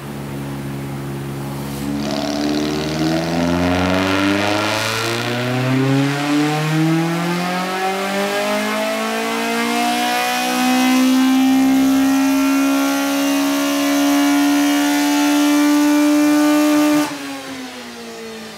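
Toyota 1NZ 1.5-litre four-cylinder engine breathing through individual throttle bodies, under full throttle on a rolling-road dyno. The revs climb steadily for about ten seconds, then hold high until the throttle is shut about 17 seconds in and the revs fall away.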